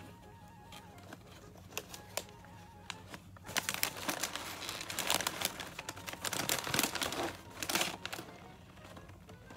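Crinkling of a thin plastic gift bag being handled and squeezed, loudest for about four seconds from the middle onward. Quiet background music plays underneath.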